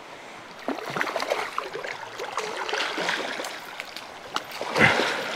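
Rushing river water with irregular splashing as a hooked rainbow trout thrashes at the surface while being landed, with a louder burst near the end.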